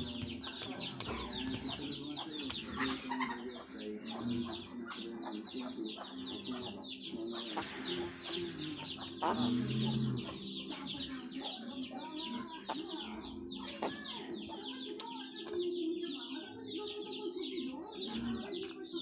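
Many birds chirping without pause, a dense run of short quick calls, over a steady low hum.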